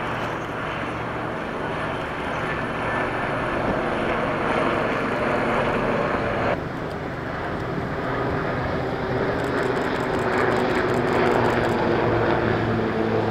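AW159 Wildcat helicopters' turbine engines and rotors sounding steadily as the helicopters fly a display pass. The level drops suddenly about six and a half seconds in, then builds again toward the end.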